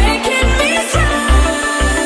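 Background music with a heavy bass beat, about two beats a second, under steady held synth tones.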